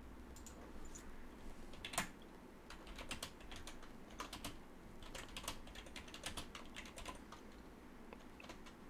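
Faint, irregular clicking of computer keyboard keys as a message is typed, with one louder keystroke about two seconds in.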